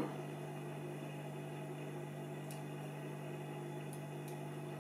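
A steady low electrical hum, with a few faint light ticks about two and a half seconds in and twice near the end: a small metal hook tapping the cassette mechanism while working a rubber drive belt onto the motor pulley.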